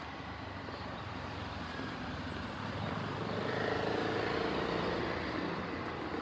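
A vehicle passing, its sound swelling to a peak about four seconds in and then easing off.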